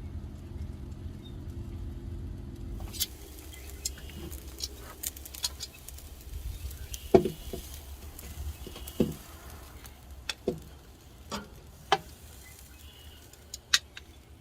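A low steady rumble that cuts off about three seconds in, then scattered sharp clicks and knocks from handling the cooked food and dishes, the loudest about halfway through.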